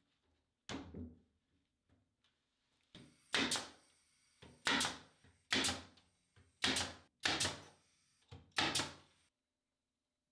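Nail gun firing nails into MDF trim: about eight sharp shots, irregularly spaced a second or so apart, some in quick pairs.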